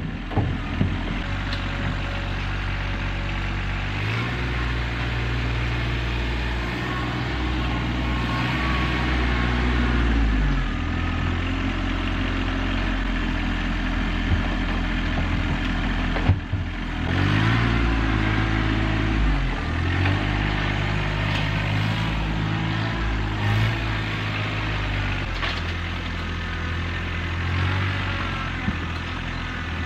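RK 25 sub-compact tractor engine running, its speed rising and falling several times as it works, with a few short knocks.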